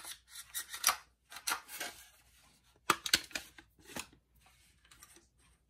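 Clicks and rattles of a Kel-Tec SU-16 rifle's polymer and metal parts being handled, as the forend is opened to get at the long-stroke gas piston. Two sharp clacks about three seconds in are the loudest.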